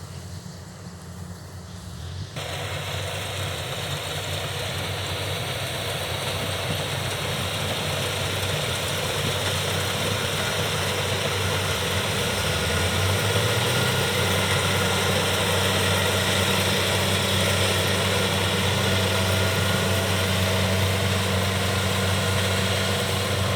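Kubota combine harvester running steadily while harvesting rice: a low engine drone with a rushing machinery noise that cuts in about two seconds in, the whole growing gradually louder.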